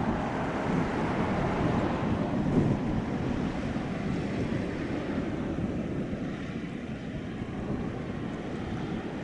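Wind rumbling on the microphone, mixed with the wash of water along the hull of a large passing car ferry.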